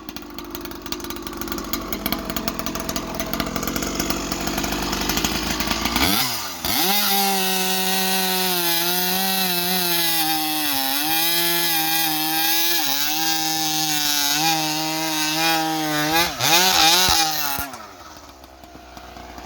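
Husqvarna 372XP two-stroke chainsaw with a prototype CPI expansion-pipe exhaust, cutting wood under load for about six seconds. It then revs up to a steady high-pitched wide-open-throttle scream for about ten seconds, and drops back to idle near the end.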